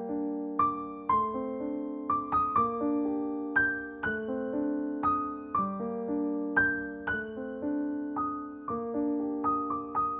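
Background music: a slow piano melody over chords, each note struck and then fading.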